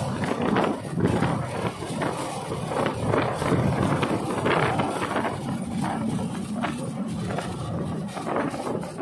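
Motorcycle riding along a rough country road: wind buffeting the action camera's microphone, with the engine running underneath.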